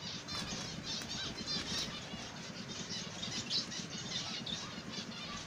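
A cageful of zebra finches calling, with many short, rapid chirps overlapping, over a low steady hum.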